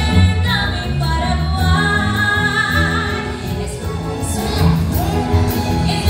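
A woman singing into a microphone, amplified, over a live orchestra with violins and other strings and a steady bass.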